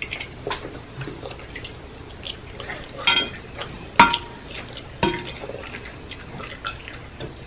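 Metal fork clinking and scraping against a glass baking dish while saucy instant noodles are picked up, with sharp clinks about three, four and five seconds in, the one at four the loudest and briefly ringing. Soft wet sounds of the noodles come in between.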